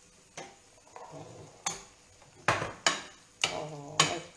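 A spoon stirring gnocchi and sauce in a frying pan, scraping and knocking against the pan about seven times, with a brief ring after the louder strokes. The grated cheese is being stirred in with the heat off.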